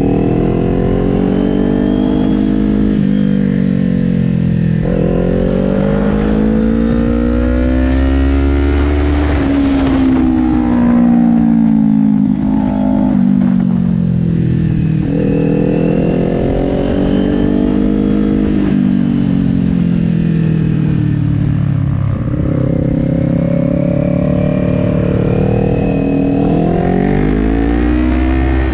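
Kawasaki Ninja 400's parallel-twin engine heard from on board, rising in pitch under throttle and falling away as the rider rolls off for the turns, several times over, with a few sudden steps in pitch. Wind rushes over the microphone, loudest around nine seconds in.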